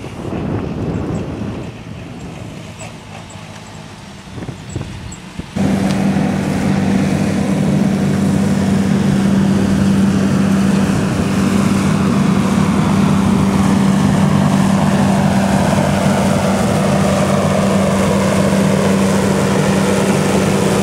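Wind-like noise at first. About five seconds in, a loud, steady mechanical hum with a strong low tone starts abruptly and carries on unchanged, typical of large industrial machinery running at a brick kiln.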